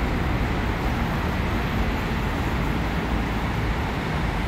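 Steady noise of city road traffic, a continuous low rumble with no distinct events.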